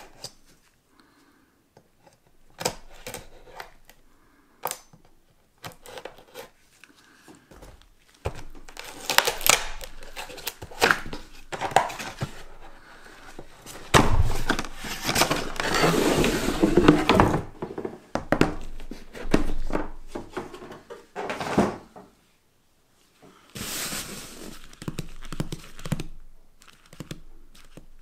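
A cardboard box being opened by gloved hands: first a few sharp taps and clicks, then long stretches of cardboard scraping and rubbing, loudest about halfway through, and dull knocks from the hard plastic carrying case inside.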